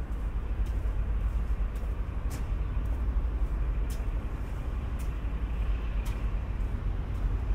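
Footsteps on a snowy, gritty sidewalk, crisp crunches at a walking pace of roughly two a second, over a steady low rumble.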